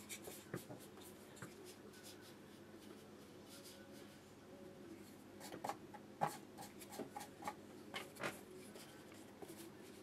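Watercolour brush scratching lightly on watercolour paper, with a handful of light clicks and taps about halfway through.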